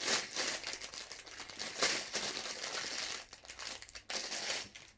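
Plastic Lego parts bags crinkling and rustling as they are handled, with loose pieces shifting inside them; irregular crackling throughout, with a few sharper crackles.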